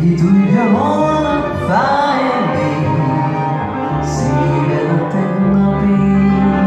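Live Hungarian Gypsy band music: a woman sings over violins, a cimbalom and a double bass, with sliding melodic phrases about a second in.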